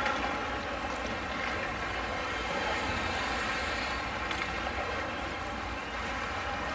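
Steady ice hockey rink background noise: a low rumble under an even hiss, with no distinct knocks or voices.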